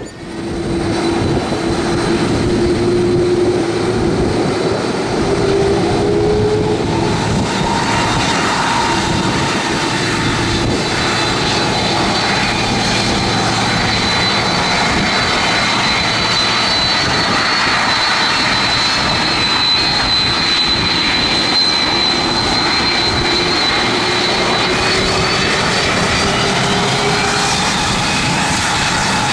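Airliner engines running loud and steady close by, a dense roar with several whining tones that drift slowly up and down in pitch.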